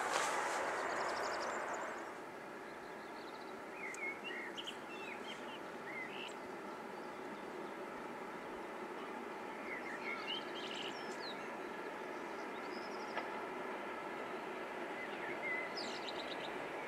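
Freight train hauled by a Slovenian Railways electric locomotive approaching from a distance, a steady running rumble, with small birds chirping a few times over it. A louder rushing noise fades out about two seconds in.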